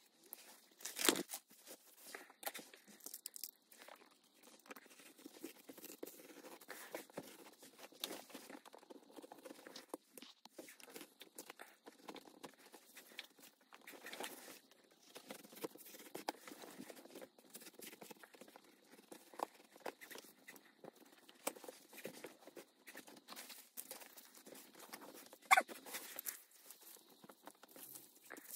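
Faint, irregular rustling, crinkling and small clicks of materials being handled and worked by hand, with a sharper knock about a second in and another near the end.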